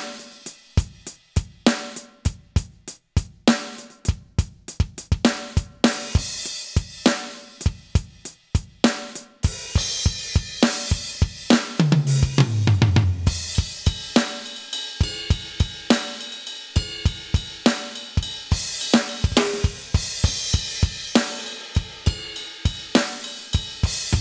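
Aroma TDX-25 electronic drum kit played through its sound module on the 'Old Rock' preset kit: a rock beat of kick, snare and hi-hat with crash cymbals. Near the middle there is a tom fill that steps down in pitch.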